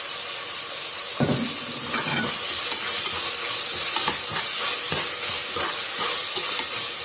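Chopped tomatoes, onions, coriander and mint sizzling in hot oil in a pressure cooker pot, stirred with a slotted spoon that scrapes against the pot bottom in repeated, uneven strokes.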